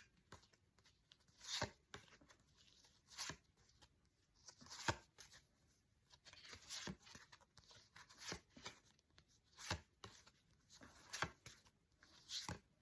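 Faint papery flicks of flashcards being turned over one after another, a short sharp stroke about every second and a half.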